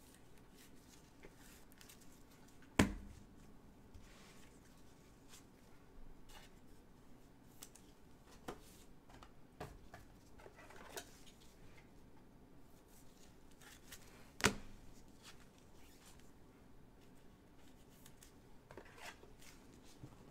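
Gloved hands handling trading cards: faint sliding and rustling of cards and wrappers with scattered light clicks, and two sharp knocks on the table, about three seconds in and again about fourteen seconds in.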